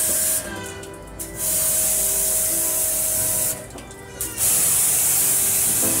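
Handheld water-wash spray gun jetting water onto an air conditioner's outdoor condenser coil: a loud, steady hiss of spray with the pump motor's hum under it. The spray stops twice for about a second.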